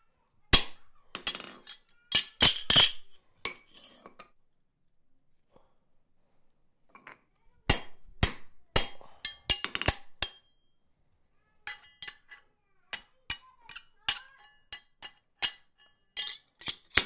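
Hammer striking a hand-held punch to drive holes through a steel chest-handle backplate resting on a bolster on the anvil: sharp ringing metallic clinks. A quick group of blows, a pause of a few seconds, a second group, then single strikes about every half-second to second near the end.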